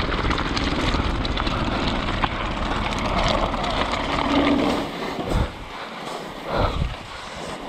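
Mountain bike riding fast over loose scree: a dense rumble and rattle of tyres on rock, mixed with wind rushing over the microphone. About five seconds in it turns softer and patchier as the bike rolls onto snow.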